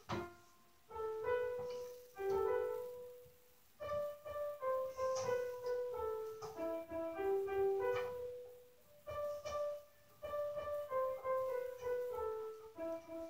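Background piano music: slow melodic phrases of single notes and chords, with brief pauses between phrases.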